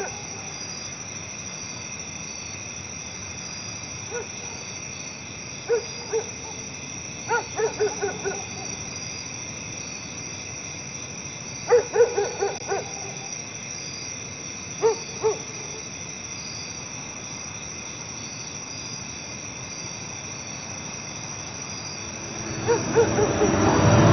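An owl hooting in short calls, some single and some in quick runs of three to five, over a steady hiss of night ambience. A louder, lower sound swells in near the end.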